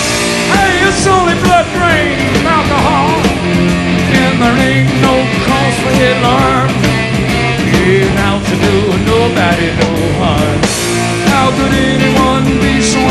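Live blues-rock trio playing: an electric lead guitar solos with bent notes over bass guitar and drums.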